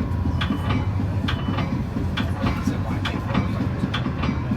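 Metra BNSF commuter train heard from inside a passenger car while running: a steady low rumble with sharp wheel clicks over rail joints every half second or so.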